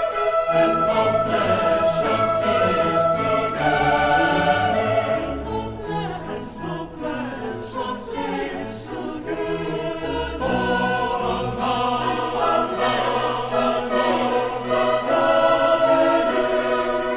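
Choir singing with orchestral accompaniment, holding long notes that shift in pitch.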